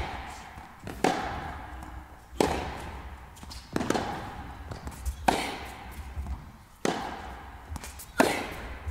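Tennis ball struck by rackets in a rally, six hits about a second and a half apart, each echoing in the indoor hall, with a few fainter ticks between.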